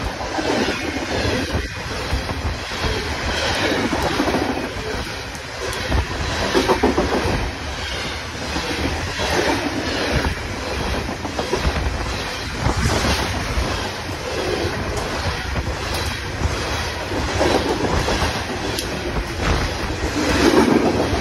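CSX coal train's loaded-type open-top coal cars rolling past close by: a continuous rumble of steel wheels on rail, with irregular loud clacks as the wheels cross rail joints.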